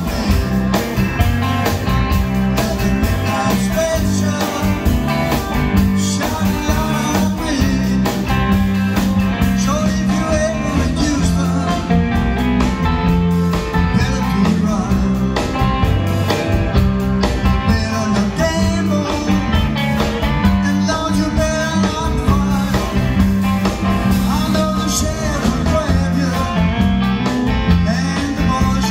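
Live rock and roll band playing: electric guitars, bass guitar and drum kit keeping a steady beat.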